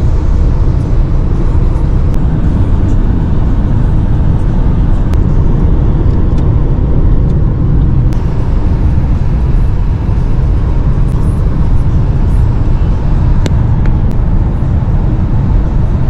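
Steady low rumble of road noise inside a car's cabin while it cruises on a highway.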